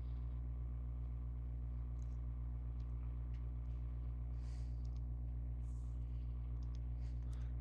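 Steady low electrical hum on the recording, with a few faint mouse clicks scattered through it and a couple of soft breaths.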